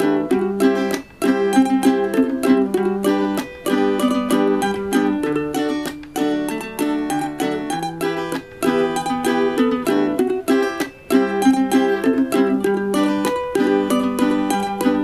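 Background music played on plucked strings, a quick, steady run of bright picked notes.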